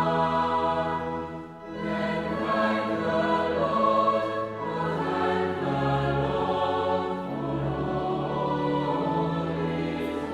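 A choir singing in sustained chords, with a short break for breath about a second and a half in.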